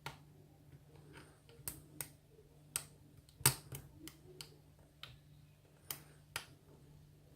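A hook pick working the pins of an ISEO pin-tumbler lock under tension: a handful of small, sharp, irregular clicks, the loudest about three and a half seconds in.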